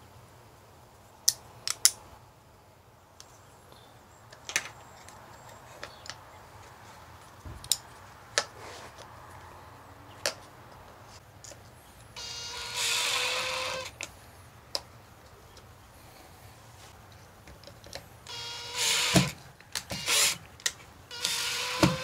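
Cordless drill-driver driving screws into a metal doorbell mounting plate: the motor whines for about two seconds about twelve seconds in, then in a few shorter runs near the end. Sharp clicks and taps from handling the plate and screws come in the first half.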